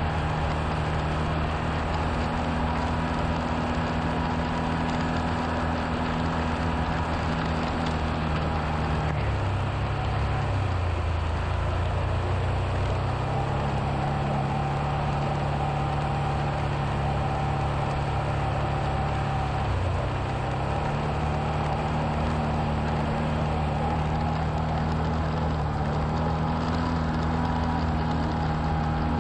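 A vehicle's engine runs steadily while driving over a dirt and gravel track, with tyre and road noise underneath. Its note drops and recovers twice, about nine seconds in and again around twenty seconds, as the throttle eases off.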